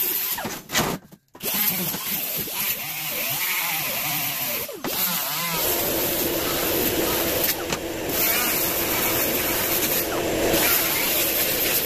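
Pneumatic die grinder with a small sanding disc grinding steel flat bar, over a constant hiss of air. Its pitch wavers at first, then from about halfway it settles into a steady whine.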